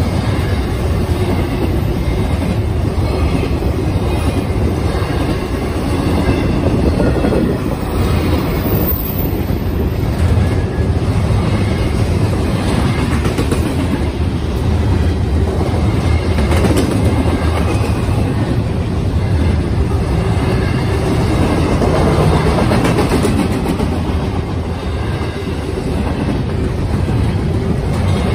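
Double-stack container freight cars rolling past steadily, a loud continuous rumble of steel wheels on the rails.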